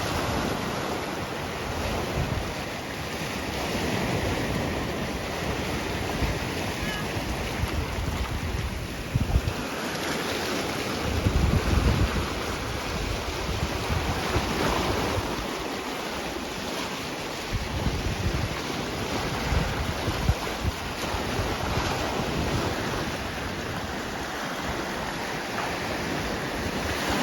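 Sea waves washing in steadily, with wind buffeting the microphone in gusts, the heaviest about ten seconds in.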